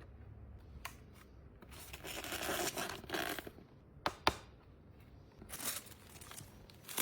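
Packaging being handled: a stretch of crinkling, tearing rustle in the middle, broken by a few sharp clicks or taps before and after.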